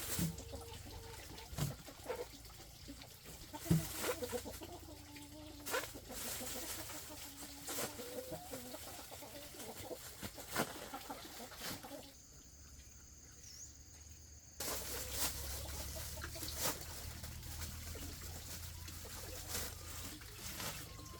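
Domestic poultry clucking and calling, with scattered knocks. About twelve seconds in the sound drops to a quieter stretch with a thin steady high tone, then returns about two and a half seconds later.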